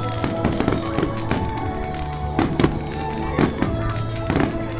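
Aerial fireworks bursting in quick succession, several sharp bangs a second, with music playing underneath.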